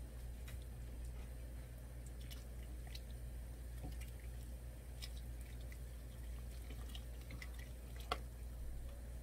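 Kimchi stew boiling in a pot, with soft bubbling and small clicks as a metal spoon stirs red pepper paste through it, and one sharper tap about eight seconds in. A steady low hum runs underneath.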